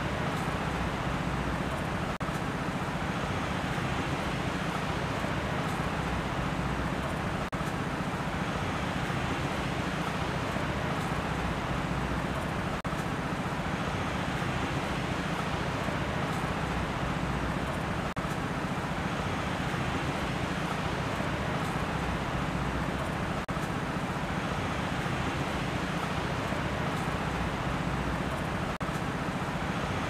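Steady rushing noise from a nature ambience track, with a slight dip about every five seconds.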